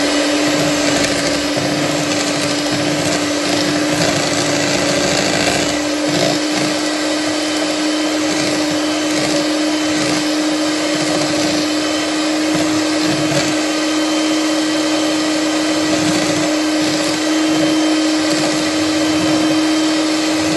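Kenwood electric hand mixer running at one steady speed, its beaters whisking pancake batter in a plastic bowl: a loud, even motor whine.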